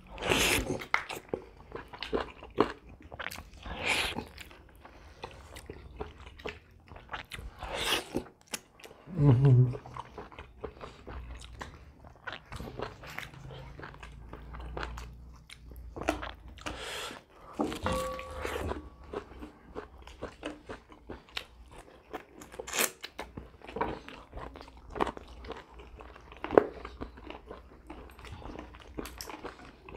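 Close-miked eating of roast chicken by hand: chewing and biting, with many short, irregular crunches.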